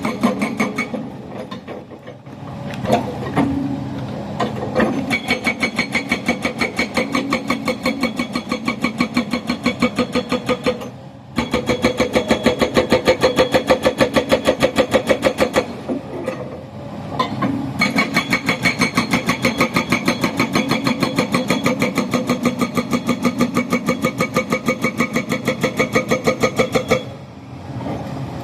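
Schwing Stetter hydraulic rock breaker on an XCMG 215 excavator hammering in rapid, evenly spaced blows, several a second. It runs in long bursts broken by two short pauses, over the excavator's engine running.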